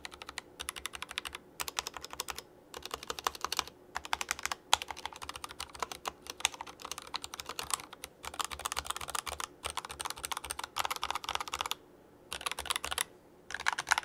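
Typing on an Akko ACR mechanical keyboard kit with a translucent polycarbonate-style case, fitted with lubed Akko Jelly Pink linear switches and stock stabilizers, with no case foam. Fast runs of key clacks are broken by brief pauses.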